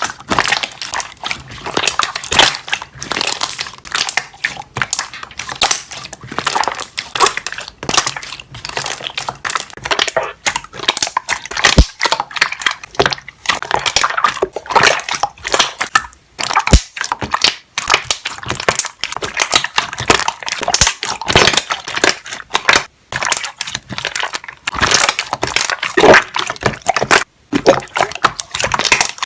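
Slime being worked so that trapped air bubbles pop, giving a dense, irregular run of crackling pops and clicks.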